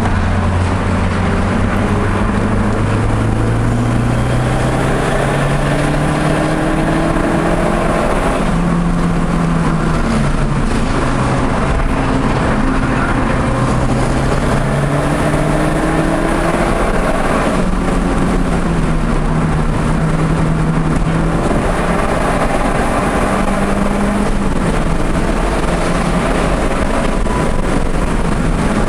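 Audi TT's engine on track, rising in pitch as it accelerates through the gears and dropping at each shift or lift, several times over. It runs over a heavy, steady rush of wind and road noise.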